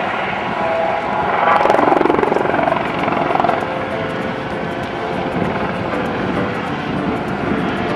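Helicopters flying overhead in a display formation: a steady rotor and turbine noise that swells to its loudest about two seconds in as they pass, then settles.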